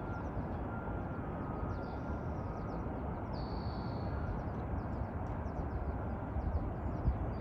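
Steady low outdoor rumble, with small birds chirping in quick high notes throughout and one brief held high trill about three seconds in.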